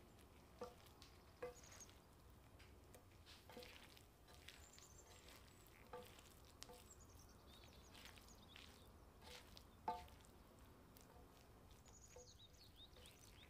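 Quiet stirring of rice in a stainless-steel pan, with a spatula knocking on the pan every second or two so the metal rings briefly. The loudest knock comes about ten seconds in.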